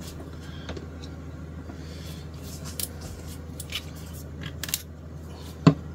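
Light clicks and taps of small tools and a plastic glue bottle being handled on a workbench, with one sharper click near the end, over a steady low hum.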